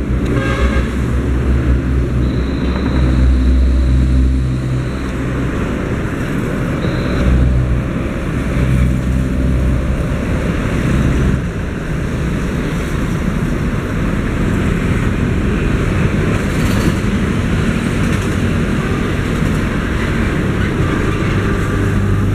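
Steady road traffic: motorcycles and cars running, their low engine hum rising and falling as they pass.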